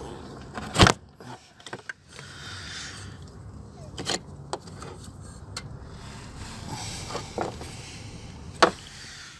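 Scattered sharp clicks and knocks of hand tools and parts being handled under a car, the loudest about a second in and another near the end.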